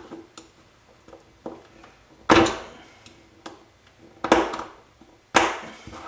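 A small screwdriver prying at the crimped tabs of a microwave turntable motor's steel casing: three sharp metal clicks, about two seconds apart, each with a short ring, and lighter ticks and scrapes between them.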